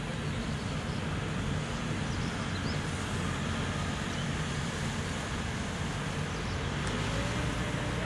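Diesel engine and hydraulics of a Manitou MRT2145 rotating telehandler running as the boom is raised: a steady low drone, with a tone that rises a little about seven seconds in and then holds.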